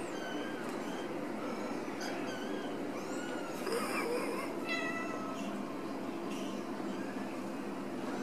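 Young Ragdoll kittens mewing over and over, many short high-pitched calls that rise and fall, with a busier burst of calls about halfway through.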